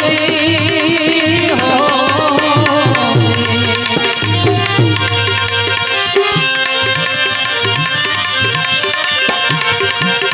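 Gujarati bhajan music: harmonium sustaining chords over tabla playing a steady rhythm, the bass drum's strokes bending in pitch. A singer's wavering held note is heard in the first three seconds, then the music goes on without it.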